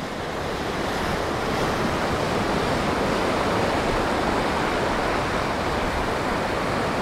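Ocean surf washing against a rocky shore, a steady rush of waves mixed with wind, fading up over the first second.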